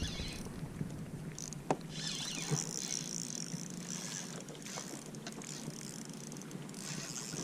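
Water sloshing and hissing around a kayak, with a few small clicks and knocks, one sharper knock about two seconds in.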